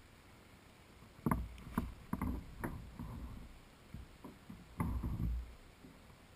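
Irregular knocks and hollow bumps on a kayak hull, in two short clusters: a few about a second in, then more near the end.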